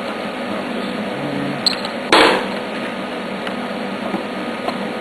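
Steady mechanical hum of a garage fan or other running machine, with a short burst of handling noise about two seconds in.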